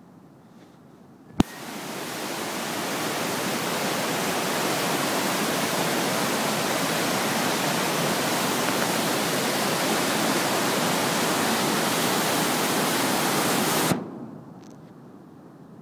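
The River Esk in flood, running about three feet above its usual level: brown floodwater rushing white over rocks, heard as a loud, even rushing of water. It comes in suddenly with a click about a second and a half in and cuts off just as suddenly near the end, leaving a much fainter rushing.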